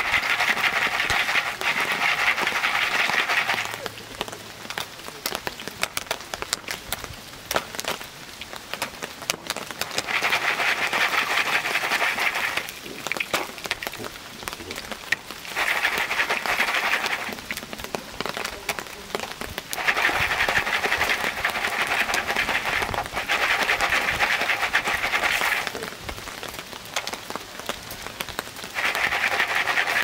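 Corn kernels rattling and sliding around in a foil popcorn pan shaken over a campfire, a rain-like rustle in five spells of a few seconds each. Scattered sharp crackles sound in the pauses between the shaking.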